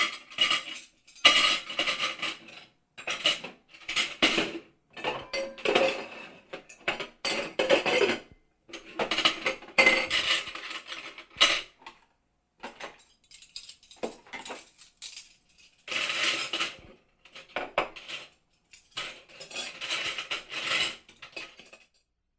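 Metal kitchen utensils, cutlery and pots and pans clinking and clattering against one another in irregular bursts with short pauses between them.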